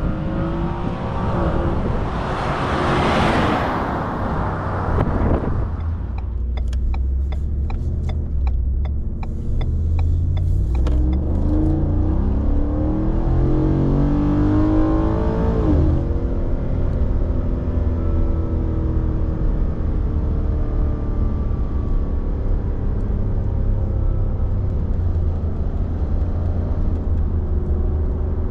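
Ford F-150's 5.0 L Coyote V8 on its stock exhaust, running with a steady low rumble and accelerating about halfway through, its pitch rising for a few seconds before holding steady. A loud rush of wind noise fills the first few seconds, and a run of sharp clicks follows.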